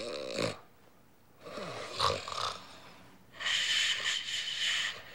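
A man snoring in his sleep: a rough in-breath about one and a half to two and a half seconds in, then a longer, airy out-breath from about three and a half seconds.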